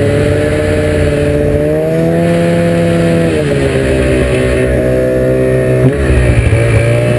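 Ski-Doo MXZ 800 snowmobile's two-stroke engine running at speed under the rider, with its pitch dipping about three seconds in and again near six seconds as the throttle eases.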